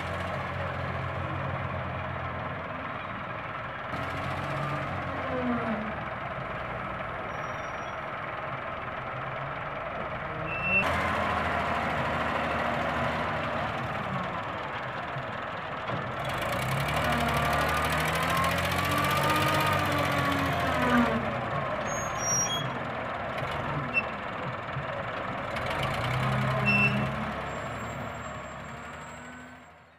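Caterpillar 966F wheel loader's six-cylinder diesel engine working hard, revving up and dropping back several times as it scoops and lifts sand, with the farm tractor's diesel idling alongside. Short high beeps sound now and then, and the sound fades out at the end.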